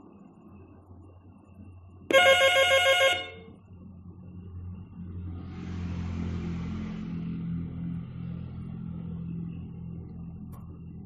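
Landline house telephone ringing: one electronic ring about a second long, around two seconds in.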